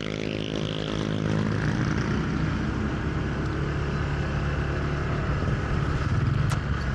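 Motorcycle engine running at a steady speed while riding, with wind and road noise, picked up by a helmet-mounted microphone. One sharp click comes near the end.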